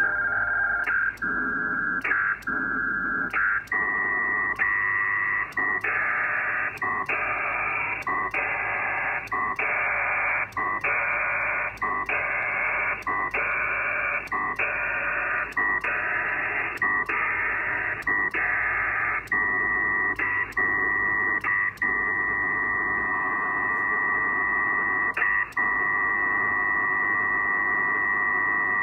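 Pactor data signals heard over an HF radio: a dense noisy burst of data tones repeating in a cycle of about one and a quarter seconds, each cycle broken by a short gap. This is the ARQ packet exchange of a Winlink connection, with packets being repeated on a poor band. Near the end the signal runs on longer with fewer breaks.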